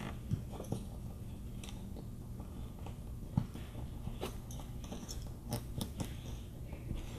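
Small, scattered clicks and ticks of thin cable wires being pressed by hand into the plastic slots of a keystone 110 punch-down jack, with one sharper click about halfway through.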